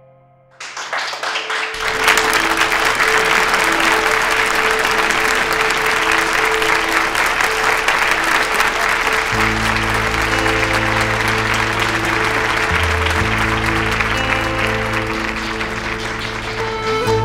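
An audience clapping, starting suddenly about half a second in and going on steadily, over background music whose bass comes in about halfway through.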